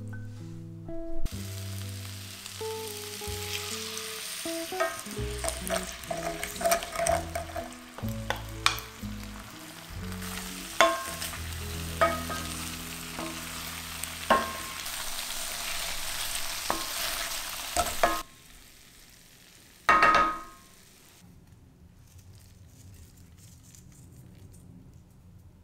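Tofu and vegetables sizzling in sauce in a hot enamelled pan, with sharp clicks of a wooden spatula against the pan as they are stirred. The sizzling stops abruptly a few seconds before a single loud clink.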